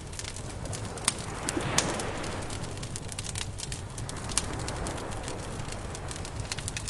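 Wood fire crackling with irregular sharp pops, over a steady low rumble, while surf swells up and fades twice.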